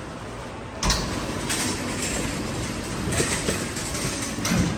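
Wire shopping trolley pushed over a concrete floor, a steady rolling rattle that starts suddenly about a second in.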